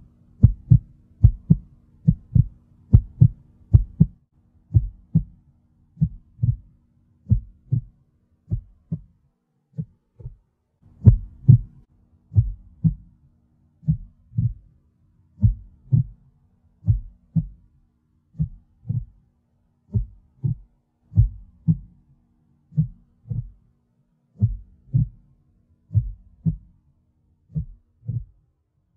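Soundtrack of low, muffled thumps in heartbeat-like pairs, repeating at an even pace of a little over once a second, over a faint steady hum that drops out briefly around ten seconds in.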